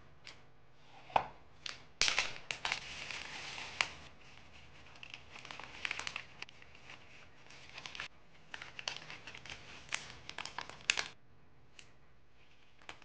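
Plastic zip-lock pouch crinkling and rustling in the hands as it is handled and filled, in spells with small sharp clicks. A single sharp click comes about a second in, before the crinkling starts.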